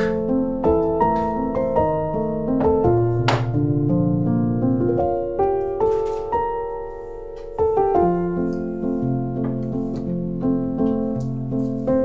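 Soft solo piano music: a slow melody over sustained chords. It thins to a few held notes just past the middle, then picks up again.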